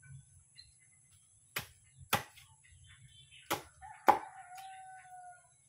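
Four sharp chopping strikes as the roots of a potted bougainvillea are cut back. A rooster crows once in the background, starting about four seconds in with a held call that drops slightly at its end.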